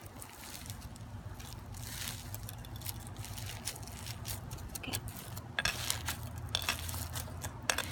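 Crunchy beaded slime being squeezed and kneaded by hand, making squishing with scattered crackles and small pops that come more thickly in the last couple of seconds.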